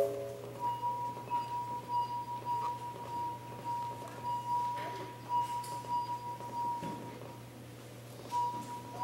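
Wine glasses played as a glass harp, giving singing, ringing tones: a brief lower chord at the start, then one high note sounded again and again in a pulsing rhythm, breaking off near the end and coming back.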